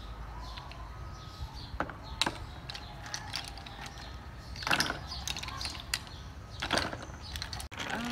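Sea snail shells clicking and clattering as they are handled and dropped into a plastic basin, with a few louder clusters of knocks about two, five and seven seconds in.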